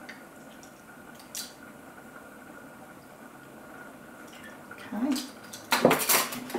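Orange juice trickling from a plastic jug into a measuring spoon and dripping into a glass bowl of cornstarch, faint. Near the end, a quick clatter as the measuring spoons are set down on the table.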